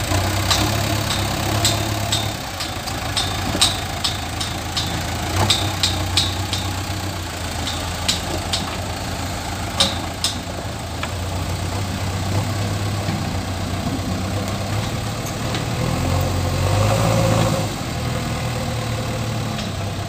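JCB backhoe loader's diesel engine running steadily, with a string of sharp metallic clicks and clanks through the first half; the engine rises briefly near the end.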